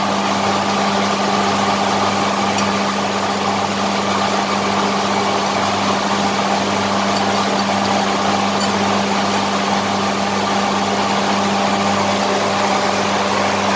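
Steady drone of running machinery, with a strong low hum and a dense hiss above it, unchanging throughout.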